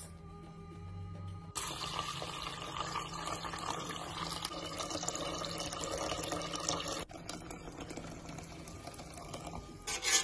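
Tap water running into a stainless steel pot of rice to wash it, over background music. The running water starts about a second and a half in and drops off around seven seconds.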